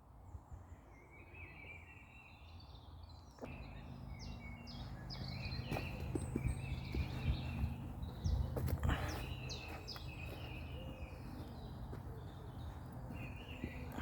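Small woodland birds chirping and singing, many short calls overlapping. A low steady hum comes in suddenly about three and a half seconds in, with a couple of soft knocks later on.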